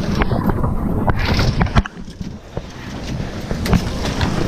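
Wind buffeting the microphone aboard a Lightning sailboat under way, with scattered knocks and clicks. A loud knock comes just under two seconds in, after which the buffeting drops off sharply, then slowly builds again.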